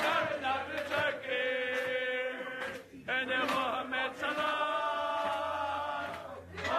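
Several men singing a chant together in long held notes, breaking off briefly about three seconds in.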